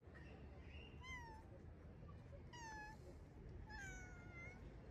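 Black-and-white domestic cat meowing three times, each meow falling in pitch, the third longer and drawn out: a hungry stray cat calling for food.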